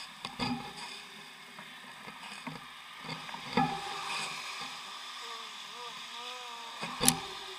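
Bicycle riding on wet roads: a steady hiss of tyres and wind, broken by sharp knocks from bumps, the loudest just before the end. A faint wavering tone comes and goes a little past five seconds in.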